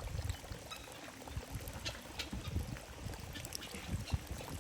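Faint water trickling, with irregular low muffled thumps and a few small sharp clicks.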